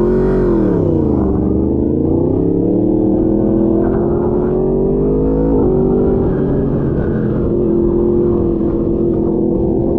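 Superbike engine heard from the rider's seat. The revs fall over the first second or so, then climb slowly, drop with a gear change about five and a half seconds in, and settle at a steady cruise. Wind rumbles on the microphone throughout.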